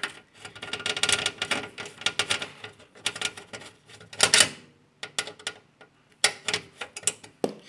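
Irregular clicking and rattling of a screwdriver, screws and metal parts as a computer cooler fan is screwed back into place, with a louder scrape about four seconds in.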